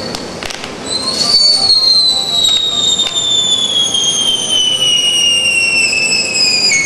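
Firework fountains burning with a whistle effect: a high, continuous whistle that starts about a second in and slides slowly down in pitch, over the steady hiss of spraying sparks. A few sharp cracks come at the start.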